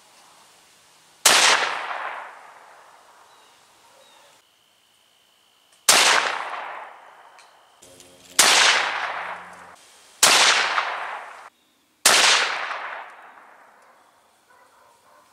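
Five shots from a Savage Axis II bolt-action rifle chambered in .350 Legend, fired while sighting in its scope. Each is a sharp crack followed by about a second of fading echo. The first two are several seconds apart and the last three come quickly, about two seconds apart.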